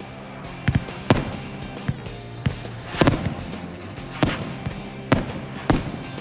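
Firework cake barrage firing: sharp cracks and bangs of shots and bursting shells, about ten in six seconds at uneven intervals, the loudest about a second and three seconds in, over a steady low hum.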